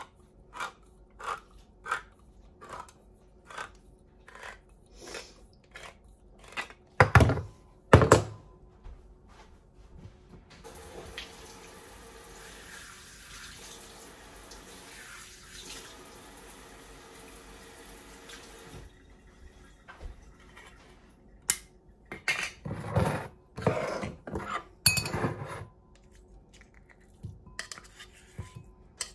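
A hand-held can opener cranking around a can of tuna, clicking about one and a half times a second, then two loud knocks. A kitchen tap runs steadily into the sink for about eight seconds. Near the end, a fork scrapes and taps the tuna out of the can into a ceramic bowl.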